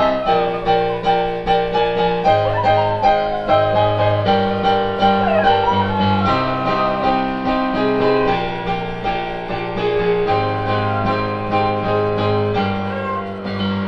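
Piano playing a steady flow of repeated notes and chords, with a dog howling along in long, wavering, falling tones several times over the music.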